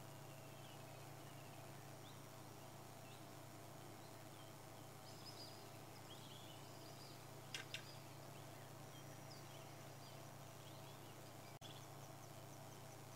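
Near silence: faint bush ambience with scattered, distant bird chirps over a steady low hum. There are two sharp clicks about halfway through, and near the end a quick series of high ticking chirps, about four a second.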